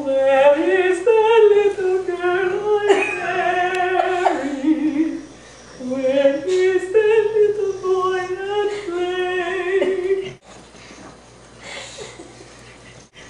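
A voice singing a slow melody without clear words, in two long phrases with a short break about five seconds in; the singing stops about ten seconds in.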